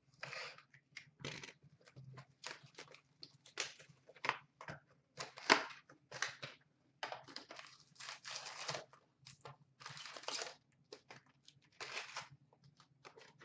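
A 2016-17 Upper Deck SP Authentic hockey card box being torn open by hand: its packaging crinkles, crumples and tears in quick, irregular bursts.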